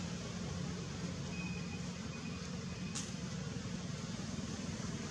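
Steady background rumble and hiss, with a faint thin high whistle that ends in a short sharp click about three seconds in.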